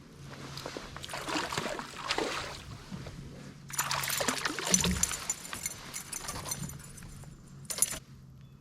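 Water splashing, pouring and trickling beside a kayak in two longer stretches, with a short sharp splash near the end, over a faint steady low hum.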